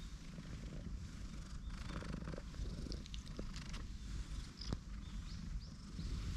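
Tortoiseshell cat purring steadily, a low rapid rumble, while it sits on a lap and is stroked.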